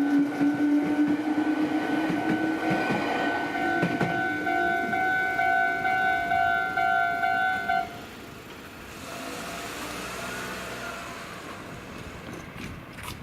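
Japanese level-crossing warning bell ringing in quick repeated dings while a Meitetsu train passes, its wheels knocking over the rail joints and a low hum from the train slowly rising in pitch. The bell stops suddenly about eight seconds in, and the sound drops to a quieter background.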